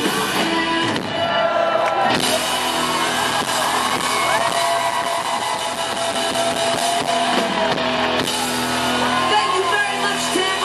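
Live rock band playing: a woman sings lead over electric guitars, bass and drums.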